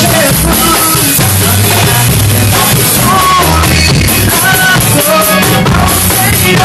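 A drum kit playing along to an upbeat rock-style song with a singing voice over it.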